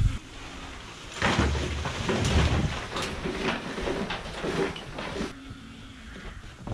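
A wheelbarrow load of dusty rubbish tipped into a rusty metal trailer: debris pouring and clattering in a run of crashes that starts about a second in and dies away after about four seconds.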